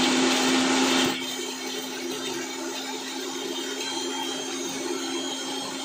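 Electric mixer grinder with a stainless steel jar running, grinding ginger and garlic into paste. It is loudest for about the first second, then settles to a steadier, quieter run with a constant low hum.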